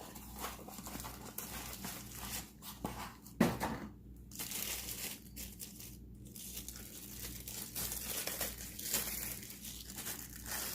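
Packaging wrap crinkling and tearing as a pair of kitchen tongs is unwrapped, with a single thump about three and a half seconds in.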